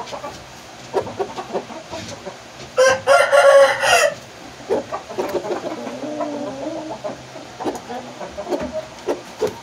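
Rooster crowing once, a loud crow of about one and a half seconds starting roughly three seconds in, followed a second later by softer low clucking calls.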